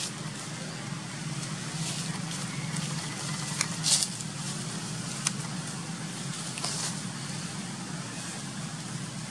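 Steady low outdoor rumble with a few scattered sharp crackles and clicks, the loudest about four seconds in.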